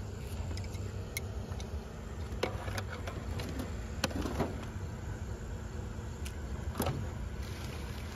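Hands rummaging through a pile of junk: plastic bags rustling and hard objects clicking and knocking against each other, with a few sharp clicks scattered through, over a steady low rumble.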